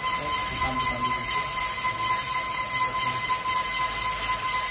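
Mini boba pearl machine running: its motor and rollers give a steady whine over a hiss.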